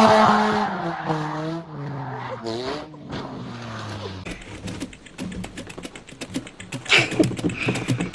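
A vehicle sound with a pitched note that slides slowly downward over several seconds, with brief voices over it, then a fast run of sharp clicks or rattles.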